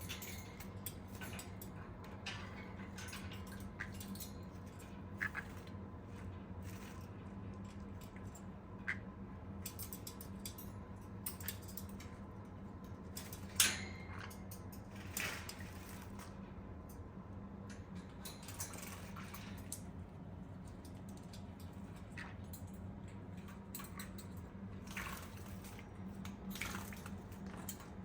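Small, irregular splashes and drips of water as a green-cheeked conure bathes in its water bowl, with one sharper splash about halfway through, over a steady low hum.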